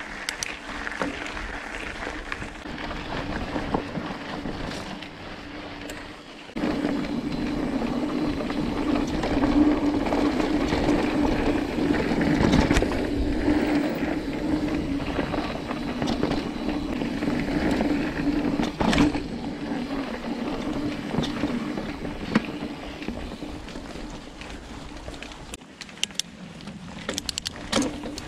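Mountain bike being ridden along a dirt forest trail: tyres rolling over dirt with the bike's chain and frame rattling, and sharp knocks over bumps, several of them near the end. The noise gets suddenly louder about a third of the way in.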